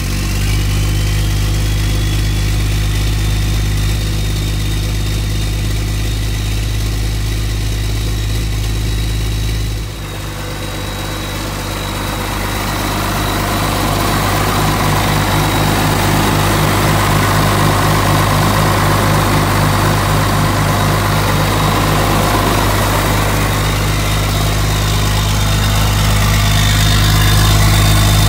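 1993 Dodge W250's 12-valve 5.9 Cummins turbo-diesel inline-six idling steadily, with a high thin whine over it. About ten seconds in, the sound changes abruptly and turns noisier, growing a little louder toward the end.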